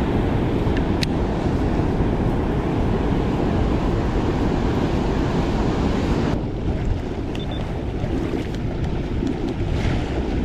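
Turbulent floodwater rushing and churning around a kayak, with wind buffeting the microphone. About six seconds in the high hiss drops away abruptly, leaving a duller rush.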